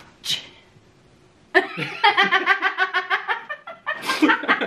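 A man and a woman laughing hard. A brief breathy sound at the start, then after a short pause a long run of rhythmic ha-ha laughter begins about a second and a half in.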